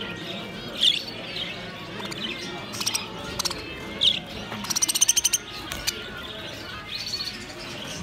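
Budgerigars chirping and chattering: sharp single chirps about a second in and about four seconds in, and a quick run of rapid clicking notes, about ten a second, around five seconds in, over a constant low chatter.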